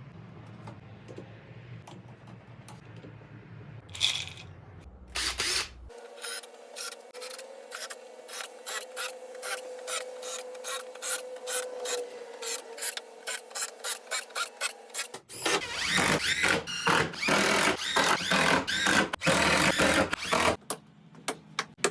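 Woodworking power tool on plywood, likely a drill: scattered clicks and a couple of short bursts at first, then a long run of short, evenly spaced strokes, then several seconds of louder, continuous work before it stops near the end.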